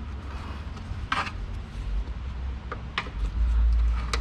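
Scattered knocks, clicks and a short scrape of car front-end parts being handled and pushed into position while the radiator support is fitted, over a low rumble that swells near the end.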